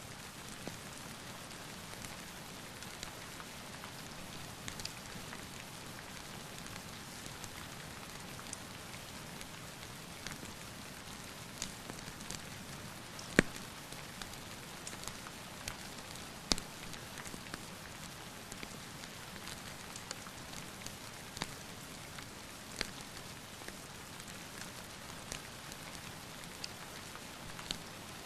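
Steady rain falling, with scattered sharp crackles and pops from a wood fire in a fireplace; the loudest pop comes about halfway through.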